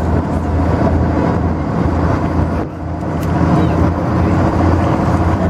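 Passenger launch's engine running with a steady low drone as the boat moves along the river, dipping briefly about two and a half seconds in.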